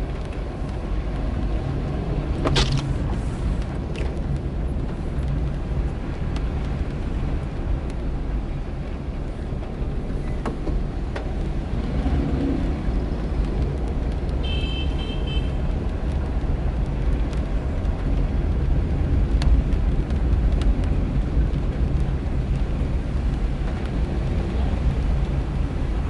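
Car driving slowly on wet, puddled streets, heard from inside the cabin: a steady low engine hum and tyre noise. A sharp click comes a couple of seconds in, and a short high-pitched beep about halfway through.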